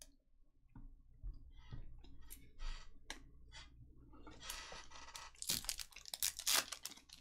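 A foil trading-card pack wrapper being torn open by hand, crinkling and ripping in a run of quick bursts that grow loudest over the last couple of seconds. Before that come a few light clicks and rustles as the packs are handled.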